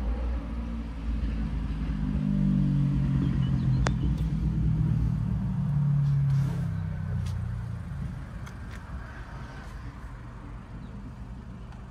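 A motor vehicle's engine rumbling, swelling for several seconds and then fading away about eight seconds in. A sharp click comes about four seconds in.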